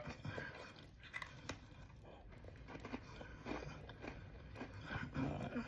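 Someone quietly chewing a chocolate-cinnamon Oreo, with faint, irregular crunches and mouth sounds.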